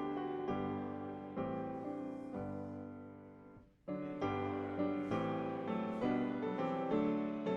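Piano playing slow hymn chords, each struck and left to ring. Midway the sound dies away almost to silence before a new phrase begins with a fresh chord.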